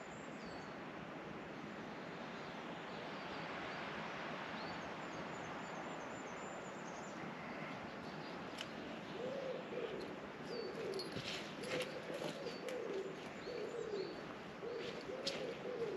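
A pigeon cooing in a repeated series of low, arching notes from about halfway in, with small birds chirping high above it, over a steady wind hiss.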